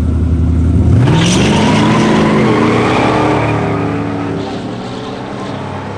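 Drag cars (a supercharged Ford F-150 Lightning and a Ford Mustang Fox Body) launching off the line at full throttle. Engine pitch climbs steeply, drops at a gear shift, climbs again, then the sound fades as the cars run away down the strip.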